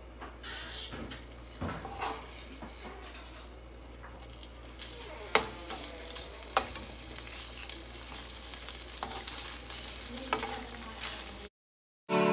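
Raw bacon strips sizzling in a frying pan, with metal tongs clicking sharply against the pan every so often. The sizzle cuts off suddenly near the end.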